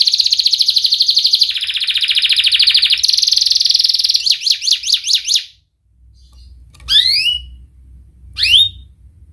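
Domestic canary singing fast, tight trills of rapidly repeated high notes, changing speed twice. After a short pause come two brief sweeping chirps.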